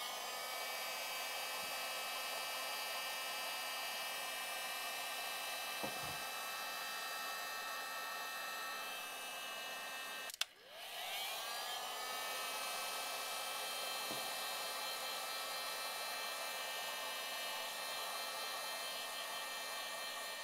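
Heat gun blowing steadily with a whirring fan whine as it shrinks heat-shrink tubing over a soldered cable joint. About halfway through it cuts off, then starts again, its whine rising as the fan spins back up.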